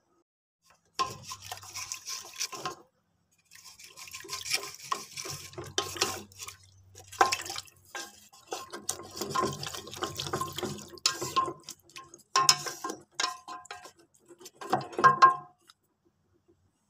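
Wooden spatula stirring chunks of beef rib and carrot in water in a metal pressure-cooker pot, sloshing the liquid and knocking against the pot. It comes in several bouts with short pauses between them.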